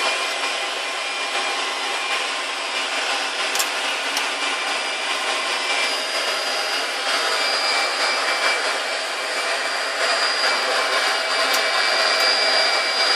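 Rolls-Royce RB211 turbofan on a Boeing 747-200 running at ground idle just after start, heard from the flight deck as a steady rushing noise with a thin high whine. A few light clicks sound about a third of the way in and again near the end.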